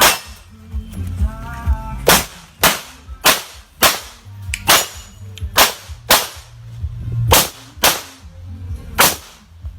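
9mm Glock pistol shots fired in a string: one shot at the start, then, after a pause of about two seconds, a dozen or so more shots at a steady pace of roughly two a second.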